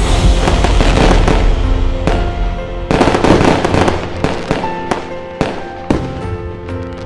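Festive background music layered with a fireworks sound effect. Sharp bangs come about once a second, with a dense crackle about three seconds in.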